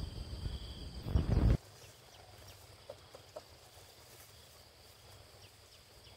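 Rural outdoor ambience: a steady high insect drone under a loud low rumbling noise that cuts off abruptly about a second and a half in. After that it is quiet, with a few faint bird chirps and ticks.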